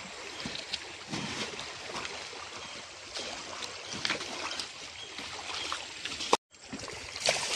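Shallow stream water running and splashing, with small knocks and scrubbing sounds as the vehicle is washed in it. The sound drops out for a moment at an edit near the end, then a louder rush of water follows.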